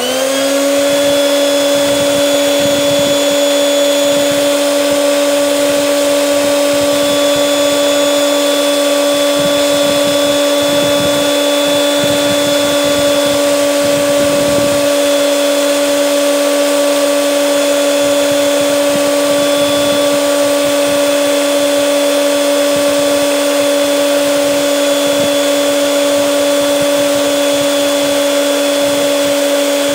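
Mallory Tornado Clean blender motor spinning up quickly at switch-on, then running at a steady whine with no jar fitted. It is running on an 800 W sine-wave inverter as a load test, holding steady without tripping the inverter's overload protection.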